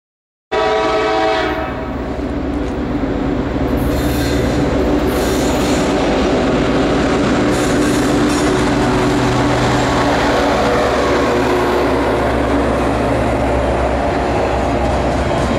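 Freight train passing close by, led by diesel locomotives. A short multi-note horn blast sounds just after the start, then the locomotives' steady diesel engine drone gives way to the rolling rumble and wheel clatter of double-stack container cars.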